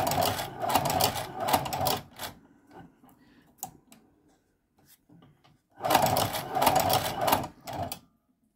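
Hand-cranked shoe patcher sewing machine stitching through thick leather, a rapid mechanical clatter of repeated stitch strokes. It runs for about two seconds, stops for a few seconds with only a few light clicks, then runs again for about two seconds near the end.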